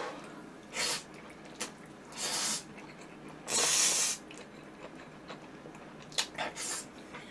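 A man slurping instant curry stir-fried noodles off chopsticks in several short hissing pulls, the longest and loudest about three and a half seconds in. Small wet mouth clicks come between the pulls and near the end.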